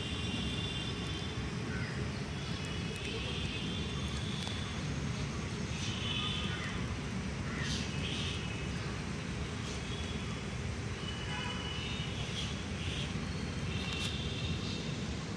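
Outdoor ambience: a steady low rumble, like distant traffic or wind, with short high chirps coming and going throughout.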